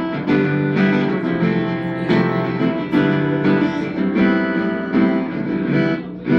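Guitar music: chords strummed and plucked in a steady rhythm, with a brief drop and a sharp accented hit near the end.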